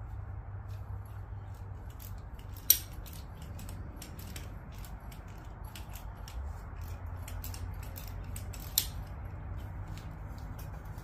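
Small irregular metallic clicks and ticks of hand tools working bolts at a turbocharger and exhaust mounting, with two sharper clinks, one about a third of the way in and one near the end, over a steady low hum.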